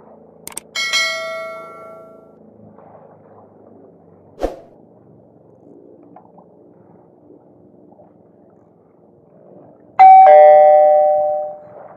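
Video-editing sound effects: two mouse clicks and a ringing bell-like chime about a second in, fading out over a second or so, then a loud two-tone ding-dong chime near the end that rings out for about a second and a half. A single sharp knock sounds in between.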